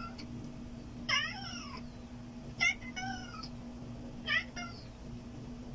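Domestic cat meowing: about four short calls, each rising and falling in pitch, a second or so apart.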